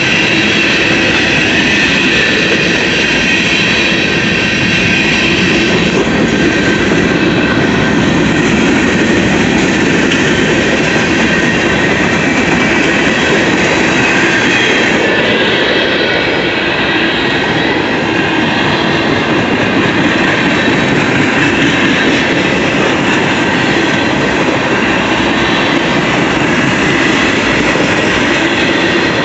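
Freight cars of a long mixed freight train rolling past close by: steady loud noise of steel wheels on rail, with thin, high squealing tones held above it.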